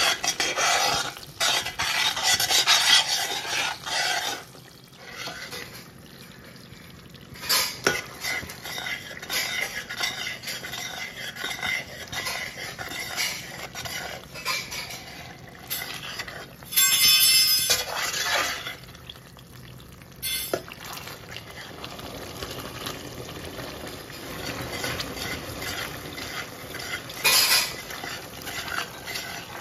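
Slotted steel spoon stirring and scraping a bubbling, sizzling sweet mixture in a steel pan, with metal clinks against the pan's sides. The bubbling is loudest in the first few seconds, and there is a loud rasping scrape about seventeen seconds in.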